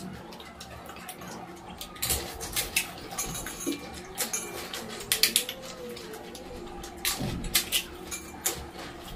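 Crisp pani puri shells cracking and crunching as they are broken open and eaten, with clinks against steel bowls; a run of sharp clicks and cracks begins about two seconds in.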